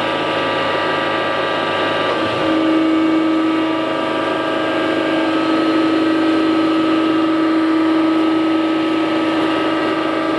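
3D711VF11 surface grinder running, a steady machine hum made of several steady tones. A stronger low tone joins about two and a half seconds in.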